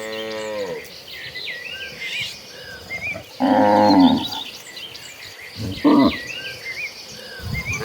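Cattle mooing: a call trailing off at the start, a loud moo about three and a half seconds in, and a short one about six seconds in, with small birds chirping throughout.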